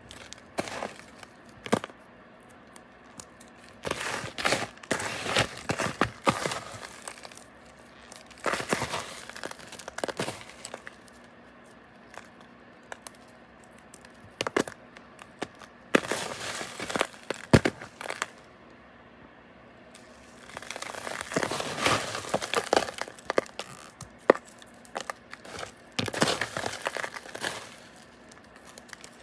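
Homemade paradichlorobenzene moth bar crushed and crumbled between the fingers. The crystals crunch and crackle in bursts of a second or two, with short pauses between bursts and an occasional sharp snap as a chunk breaks.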